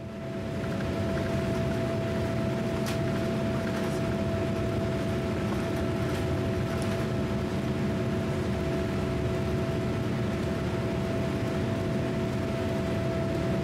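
Boeing 787 Dreamliner's engines at takeoff thrust, heard from inside the cabin during the takeoff roll. A steady drone and rumble with a constant whine in it, building in the first second and then holding level.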